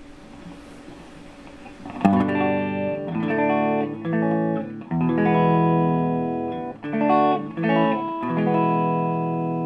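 Faint hiss and hum, then about two seconds in an electric guitar starts strumming held chords through a Nobels Sound Studio 1 preamp on its normal setting, changing chord every second or so.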